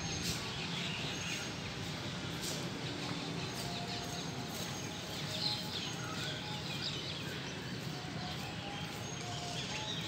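Small birds chirping now and then over a steady outdoor hiss.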